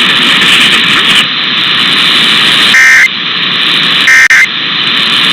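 Steady radio hiss, then two short bursts of Emergency Alert System end-of-message data tones about a second apart, with a third starting at the very end. These SAME digital bursts close an EAS test.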